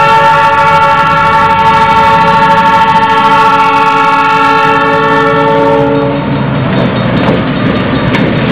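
Diesel locomotive air horn of a Québec-Charlevoix train held in one long chord of several notes, cutting off about six seconds in. The train's wheels then rumble and clatter over the rails as the locomotives and boxcars pass.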